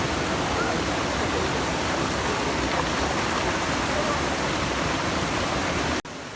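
Waterfall rushing as a steady, loud roar of falling water, cutting off abruptly near the end.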